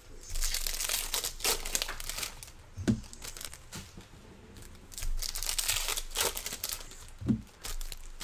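Foil-wrapped trading card packs crinkling as they are handled and shuffled, in two long stretches, with a dull knock near 3 seconds and again near 7 seconds.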